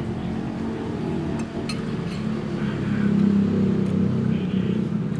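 Passing road traffic: a steady engine hum that swells about three seconds in as a vehicle goes by, with a couple of light clinks of a metal spoon against a clay pot.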